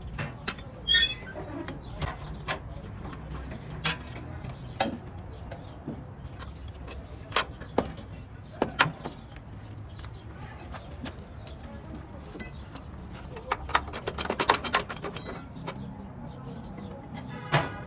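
Irregular metallic clinks and knocks of hand tools and brake parts as a truck's drum-brake shoes are fitted and adjusted, with a quick flurry of clicks about three-quarters of the way through.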